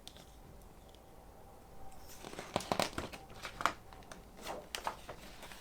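Paper rustling and crinkling as picture sheets are handled, with a quick run of short crackles from about two seconds in.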